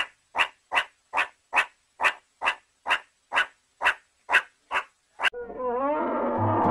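Meerkat giving a rapid series of about a dozen short, evenly spaced chirping calls, roughly two and a half a second. Near the end the calls stop and a louder, rougher, continuous sound takes over.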